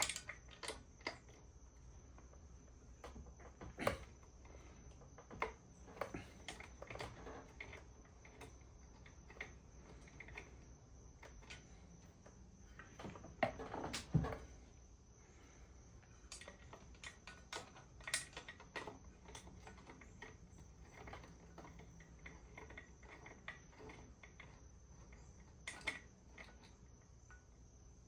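Scattered clicks and light metal knocks of hand tools working on a 1969 Johnson 9.5 hp outboard's lower unit, as the gear shaft connector rod is unhooked and the lower unit pulled off. The loudest knocks come about four seconds in and around thirteen to fourteen seconds in, over a faint steady high tone.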